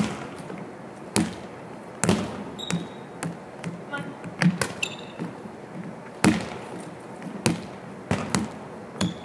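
Volleyballs smacking off forearms and bouncing on a hardwood gym floor as passing drills are run, sharp echoing knocks about once a second. Short sneaker squeaks come in between the knocks.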